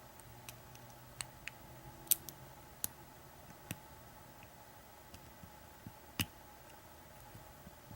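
Faint, irregular metallic clicks and ticks of a hook pick working the pin stack of an American 1100 padlock under tension while single pin picking, the lock held in a false set. Two sharper clicks stand out, about two and six seconds in.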